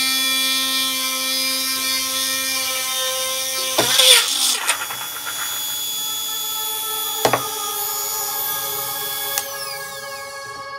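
220 V DC mixer-grinder motor with a drill chuck on its shaft, running at high speed with a steady whine while drilling into a wood block. About four seconds in there is a brief loud grinding clatter as the chuck comes off the shaft and stays in the wood. The motor then runs on with a changed whine that falls in pitch near the end.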